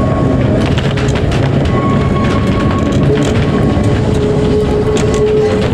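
Electric tramcar running on rails: a steady loud rumble of wheels with thin whining tones that come and go, one held for a couple of seconds in the second half.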